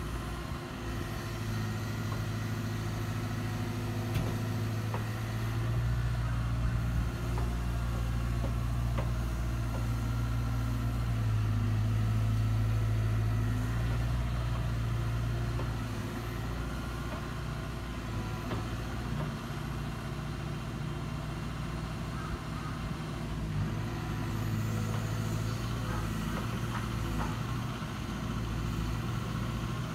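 Hyundai 140LC-9A excavator's diesel engine running steadily, speeding up and getting louder for several seconds as the hydraulics take load, then easing back, and pulling up again later.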